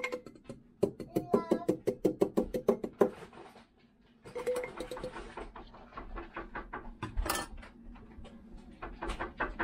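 A small metal strainer clinking and knocking against a shaker cup while lemon juice is strained of its seeds, in a run of short sharp clicks.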